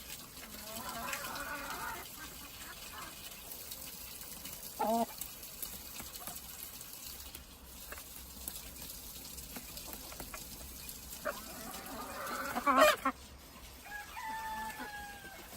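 Chickens clucking with a rooster crowing: several separate calls, the loudest and longest a little past two-thirds of the way through.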